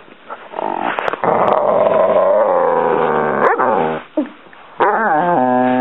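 Dog whining and grumbling in frustration at a toy stuck under a couch: a rough growling whine for about three seconds, a short cry, then a long pitched whine starting near the end.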